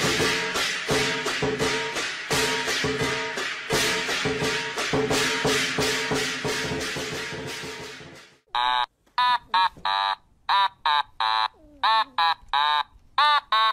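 Upbeat background music with a steady beat. About eight seconds in it gives way to a run of short, chirping electronic bleeps, each rising and falling in pitch, about two to three a second.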